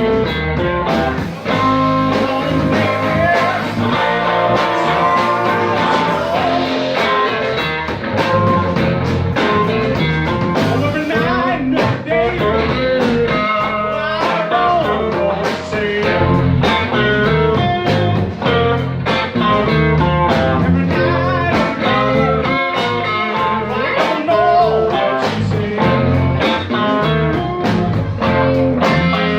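Live blues band playing, guitar-led, over a steady drum beat, heard through a phone's microphone.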